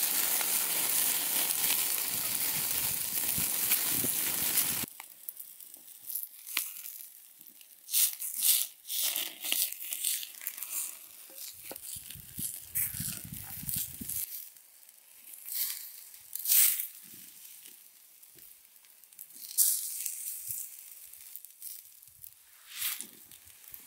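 Meat on skewers sizzling over a flaring wood fire, a loud, dense hiss that cuts off suddenly about five seconds in. After that, a wood fire's embers crackle with scattered sharp pops and snaps, and a brief low rumble comes near the middle.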